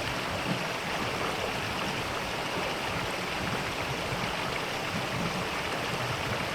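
Mountain valley stream flowing steadily: an even, unbroken rush of water.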